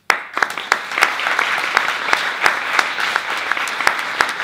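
Audience applauding: many hands clapping together in a dense, even clatter that breaks out suddenly.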